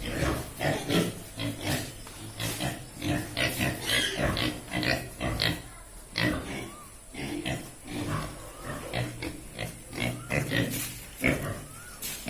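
Domestic pigs grunting: many short grunts, several a second, overlapping and uneven.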